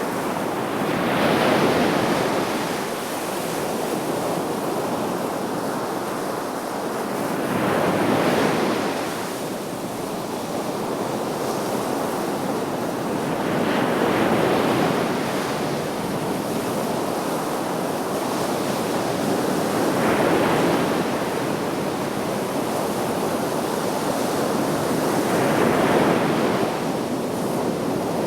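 Sea waves breaking on the shore over a steady wash of surf, a wave swelling up about every six seconds, five in all.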